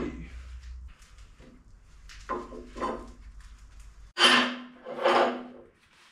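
Pieces of split firewood knocking together and clattering down as they are handled: two light knocks a little past two seconds in, then two louder ones at about four and five seconds.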